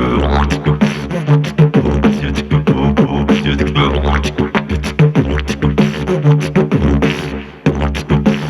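Didgeridoo beatboxing on a C# Saxo-Didge, a saxophone-shaped didgeridoo. A steady low drone is kept going by circular breathing, with fast percussive beatbox hits and vocal sounds driving a funk groove through it. There is a brief break in the beat near the end.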